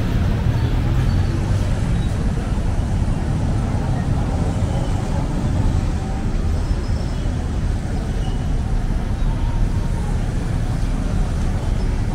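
Steady road traffic on a busy city street: a continuous low rumble of passing vehicles with no single event standing out.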